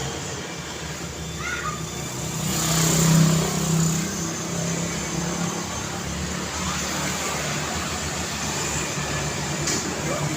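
Road traffic: a steady wash of tyre noise and engine hum from passing cars, with one vehicle passing loudest about three seconds in.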